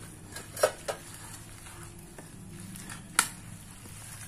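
Hand squeezing and mixing wet onion pakodi batter in a stainless steel bowl, with two sharp clicks against the bowl, about half a second in and about three seconds in, over a steady low hum.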